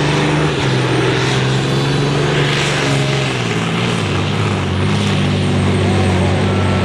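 Diesel truck engine running hard while pulling a weighted sled, its note dropping in steps a few times.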